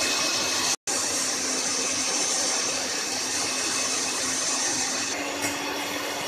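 Electric hand mixer running steadily, its twin wire beaters whipping heavy cream in a steel bowl. The sound cuts out for a moment under a second in, and the motor hum rises slightly in pitch about five seconds in.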